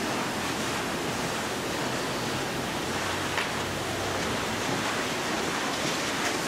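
Steady, even hiss of room noise with a faint low hum beneath it, no speech.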